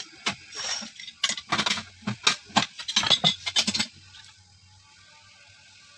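Metal clinking and clanking from steel drill pipe and tools being handled at a water-well drilling rig: a quick, irregular run of sharp knocks that stops about four seconds in, leaving a faint low hum.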